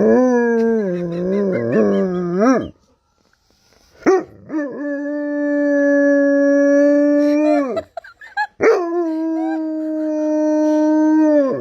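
Dog howling: three long howls, the first wavering up and down in pitch and the next two held on one steady note.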